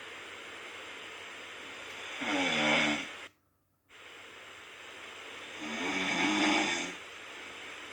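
A sleeping person snoring: two snores, each about a second long and about three and a half seconds apart, over a steady background hiss.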